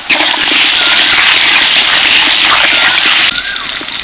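Cut potatoes sizzling loudly in hot oil in a kadai, a steady frying hiss that drops to a quieter level a little past three seconds in.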